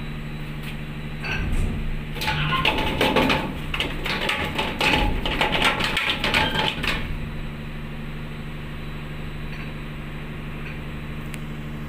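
Steady low hum of a ship's engine, with a run of rapid clicking and rattling from hands handling gear from about a second in until about seven seconds in.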